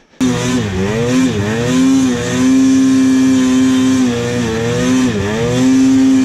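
Polaris Pro RMK 800 two-stroke snowmobile engine running hard through deep powder. Its revs hold high and dip briefly twice, about a second in and again about five seconds in, climbing back each time.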